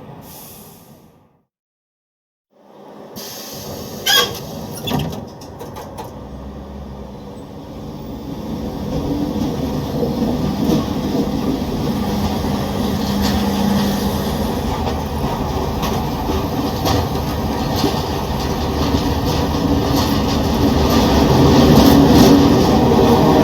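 Train on rails: after a fade-out and a short silence, two sharp knocks about four and five seconds in, then a steady rumble and rattle of the train running that grows louder towards the end.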